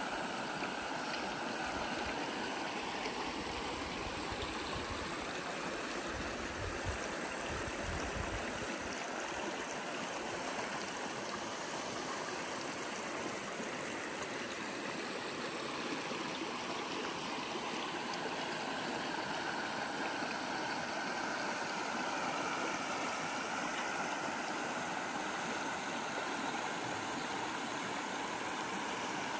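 Shallow mountain stream running steadily over rocks and small cascades.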